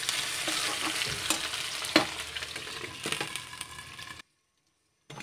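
Potatoes and pointed gourd sizzling as they fry in hot oil in a metal kadhai, with a slotted spatula scraping and knocking against the pan a few times. The sound cuts off abruptly about four seconds in.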